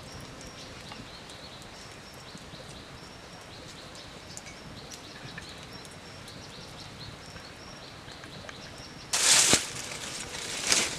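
Open wood fire crackling with scattered small pops under a spit-roasted chicken, with faint high chirping in the background. About nine seconds in comes a loud, short rush of noise, and a smaller one just before the end.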